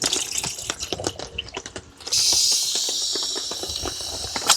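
Small clicks and knocks of handling, then a gas camp stove starts hissing abruptly about two seconds in and keeps up a steady hiss as the gas is turned on to heat water. A sharp click comes at the very end.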